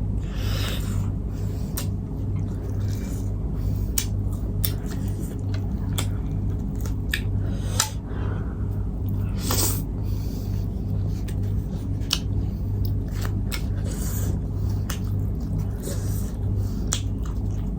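Close-miked eating: wet mouth clicks and chewing, with a couple of longer slurping or sucking sounds, over a steady low hum that pulses evenly.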